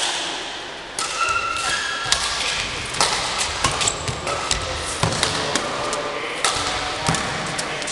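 Badminton rally: sharp racket hits on the shuttlecock, roughly a second apart, with thuds of footwork and short squeaks of shoes on the court mat.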